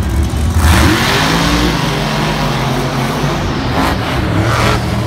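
Monster truck's supercharged V8 revving up hard about a second in, then running at high revs with further surges near the end.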